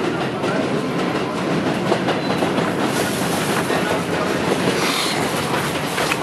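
New York City subway train running steadily along the track, a continuous rail noise with a few faint, brief high wheel squeals.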